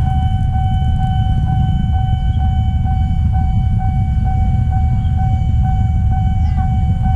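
Railway level-crossing warning signal sounding: a steady electronic tone pulsing evenly about two to three times a second, the alarm that a train is coming. Under it runs a constant low rumble.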